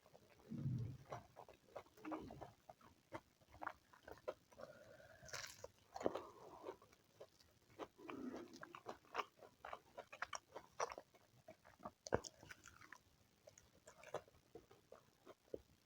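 Close-up eating sounds: one person chewing and biting food, with a steady run of small wet mouth clicks and smacks.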